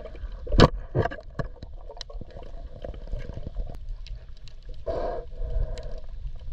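Muffled underwater sound heard through a waterproof action-camera housing: a low rumble of moving water with scattered clicks and knocks, a sharp knock about half a second in. Near five seconds a short muffled gurgle.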